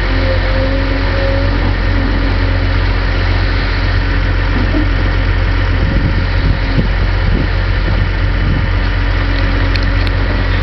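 Volvo EC460CL excavator's diesel engine running steadily, with a steady tone through it, as the machine swings and lowers its bucket; the engine note shifts unevenly for a few seconds past the middle.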